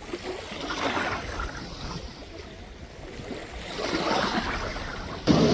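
Water sloshing and lapping around a jet ski drifting on the river, in uneven swells, with a sudden louder burst of noise near the end.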